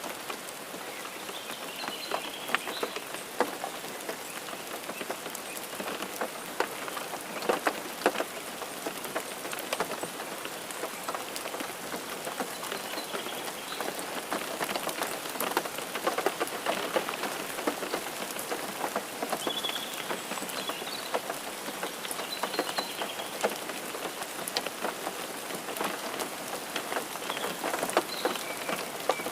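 Steady rain falling, with many separate drops hitting close by.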